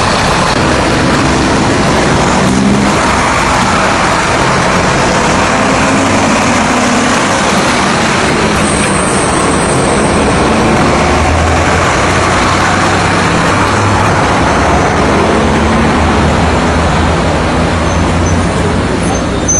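Busy street traffic: city bus diesel engines running and cars and motorcycles passing close, a continuous engine noise. A brief high squeal sounds about nine seconds in.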